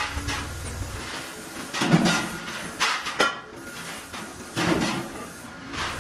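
Metal lathe turning an iron wheel disc with a low hum that stops about a second in, then several metallic clanks and knocks from the lathe's tool post and handles being worked by hand; the hum starts again near the end.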